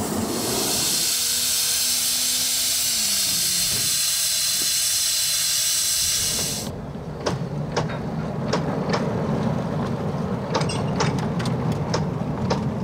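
Live-steam 7.5-inch gauge locomotive venting steam in a loud, steady hiss, with a short falling tone partway through; the hiss cuts off about six and a half seconds in. After it come scattered sharp clicks and knocks over a low rumble.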